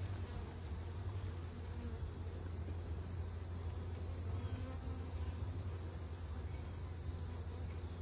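Honeybees humming in a steady low drone around an opened brood box, with a constant high-pitched chirring of insects above it.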